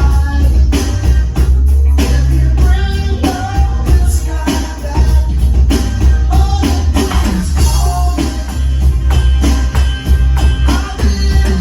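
A pop-rock song with a lead vocal and tambourine, and a drum kit played along to it as a drum cover.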